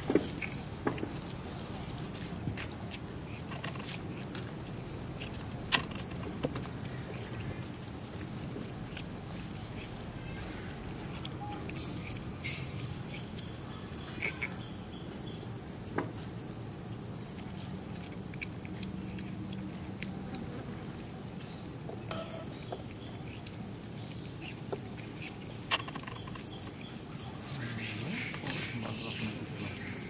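A steady, high-pitched insect drone, one unbroken tone, with a few sharp clicks or taps scattered through it.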